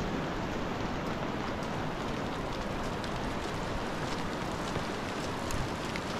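Steady rushing noise of rain together with a fast, swollen river, with faint scattered ticks of falling drops.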